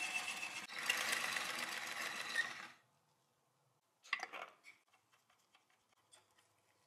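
Hand-cranked Pathé Baby 9.5mm cine projector mechanism running, a fast, dense clatter of gears, belt and film claw that stops less than three seconds in. About four seconds in, a short rattle of handling as the film gate is touched, then a few faint clicks.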